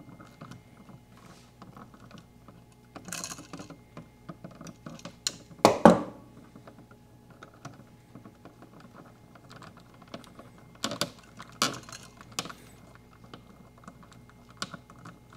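Hands working solid copper wires in a plastic electrical box: small clicks, scrapes and rattles as the wires are bent with pliers and a wire nut is twisted on. One much louder knock comes about six seconds in.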